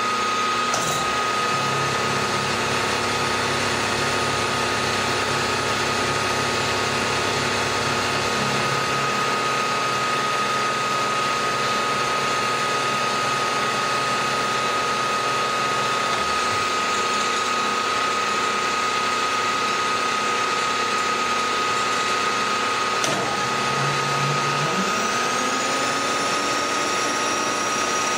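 Vertical milling machine running with a steady high whine while an insert face mill takes a facing cut across the end of a metal block, about 25 thousandths deep. There is a single click about 23 seconds in.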